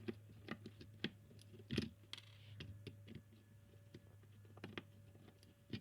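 Small screwdriver unscrewing the screws of a hard disk drive's circuit board, with faint, irregular clicks and taps of metal on metal.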